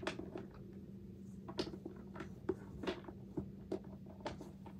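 Fidget toys being handled and set down: irregular light clicks and taps, about a dozen, the sharpest right at the start.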